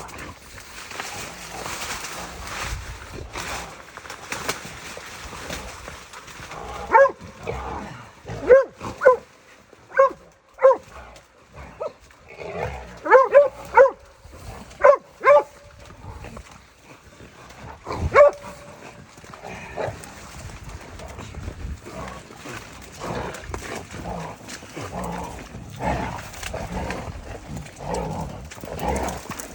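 Hog-hunting dog barking: about a dozen short, sharp barks between about 7 and 18 seconds in, some coming in quick pairs, with rustling noise around them.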